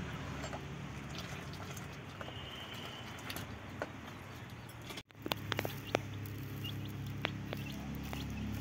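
A steel ladle stirring and dipping milky noon chai in a steel pot over a steady hiss. Then, after a sudden cut about five seconds in, chicks peck rice grains off concrete, their beaks making quick, sharp ticks with a few faint high cheeps.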